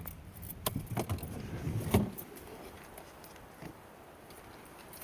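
Car keys jangling and clicking over the car's steady low hum; about two seconds in a loud sharp click, and the hum stops there.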